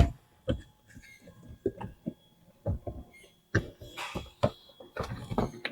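Irregular clicks, knocks and scuffs of a folding kayak's seat cage being unclipped and pulled out of the hull, its pipes and clamps knocking as they come free.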